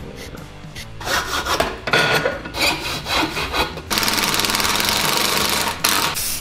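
Wood being hand-sawn in quick, uneven strokes, then a cordless power driver running for about two seconds as it drives a screw into the wood.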